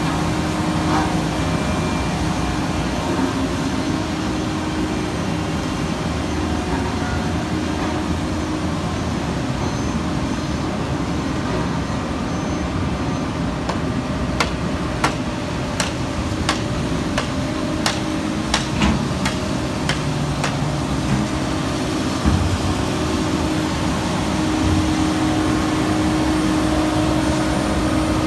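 Heavy diesel construction equipment running steadily with a continuous engine drone. A run of sharp metallic taps comes about halfway through, and a single knock follows a couple of seconds later.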